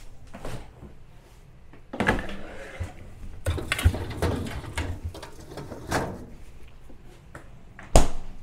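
Freezer drawer sliding open and shut amid scraping and knocks of handling, with one sharp knock near the end.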